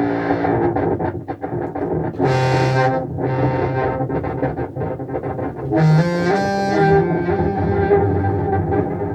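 Contrabass clarinet played through an effects pedalboard with a Walrus Fable granular delay, heard through studio speakers: several overlapping sustained low notes layered with delayed, pitch-stepping repeats, with a few brighter, buzzier swells.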